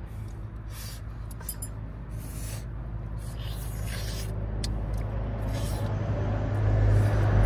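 Low rumble of highway traffic on the bridge overhead, growing steadily louder as a vehicle approaches, with short scratchy scraping noises now and then.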